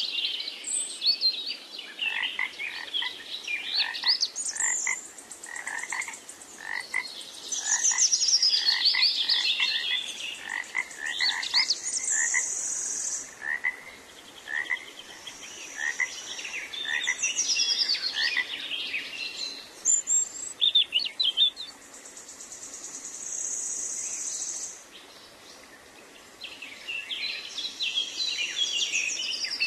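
A night chorus of frogs croaking and birds singing, with runs of short repeated calls, quick whistled chirps and glides, and a few stretches of a high steady buzzing trill.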